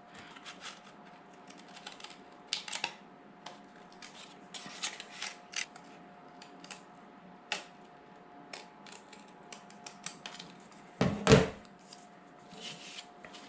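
Scissors snipping through thin food-packaging cardboard to cut out a gasket: a string of short, crisp cuts. Near the end there is one louder knock as the scissors are set down on the table.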